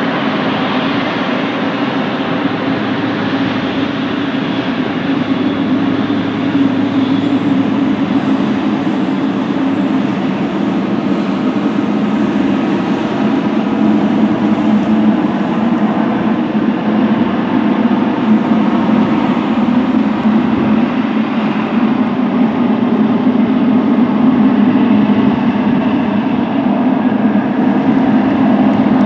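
Jet engines of a twin-engine wide-body airliner taxiing, a steady low roar that grows slightly louder toward the end and cuts off suddenly.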